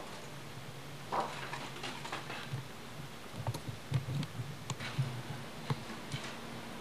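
Hammering on a wooden house frame: a few faint, sharp knocks at irregular intervals over a low steady hum.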